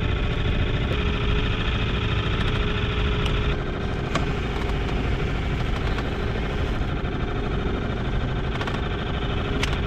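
Small four-stroke outboard motor running steadily at trolling speed.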